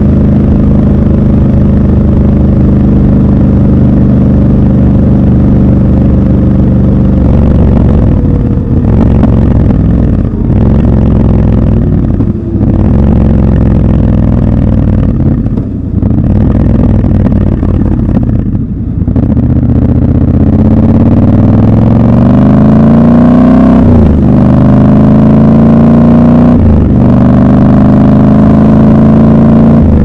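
Triumph Scrambler 1200 XC's 1200 cc parallel-twin engine, heard from the rider's seat. It runs steadily at first, goes uneven in the middle with the throttle closing and opening several times, then accelerates with rising pitch, broken twice by gear changes near the end.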